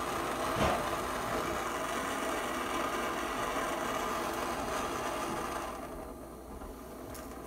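Water rushing through the household copper supply pipe and valve as the supply is turned on for a leak test: a steady hiss with a brief knock about half a second in, fading out about six seconds in as the water is shut back off.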